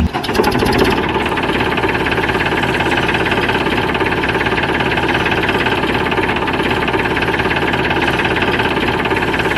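Tractor engine idling steadily with a fast, even beat.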